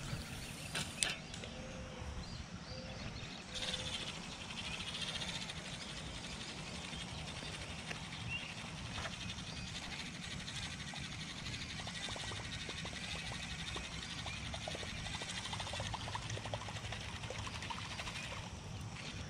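A few clicks as the spinning rod is cast, then a spinning reel cranking the line back in, a steady whirring with a fine, even ripple from a few seconds in until shortly before the end.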